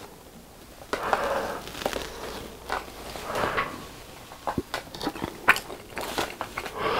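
Close-miked chewing of a mouthful of deep-fried cheese snack with the mouth closed: soft wet mouth sounds and scattered small clicks.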